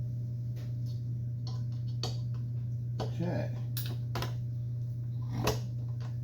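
Light metal clicks and taps, a few scattered over several seconds, as small chop saw parts are handled and set down, over a steady low hum.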